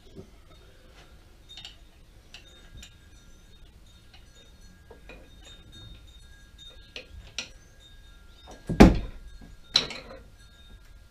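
Metal tools and parts clinking and rattling in a workshop, with faint ringing after some of the knocks, then a heavy clunk about nine seconds in and a second, lighter clank about a second later.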